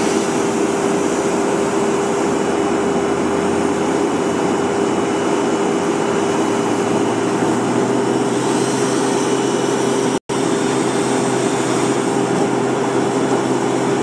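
Tow-behind wood chipper running steadily, a constant whine over loud engine noise. The sound cuts out for an instant about ten seconds in.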